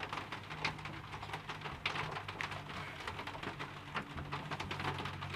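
Slime being handled: faint, irregular sticky crackles and small pops, over a steady low hum.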